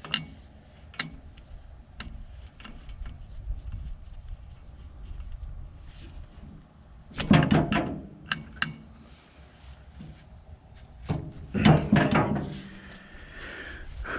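Scattered knocks and clanks of tools and metal parts being handled while the hydraulic cylinder is fitted on the backhoe, with two louder runs of clanking about seven and twelve seconds in.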